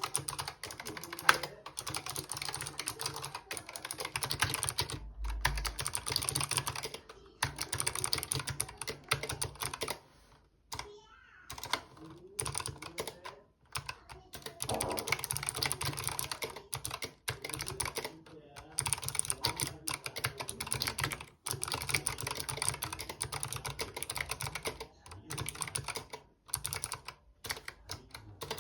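Typing on a Razer Huntsman Mini 60% keyboard with Razer optical switches: a rapid, continuous clatter of keystrokes broken by a few brief pauses.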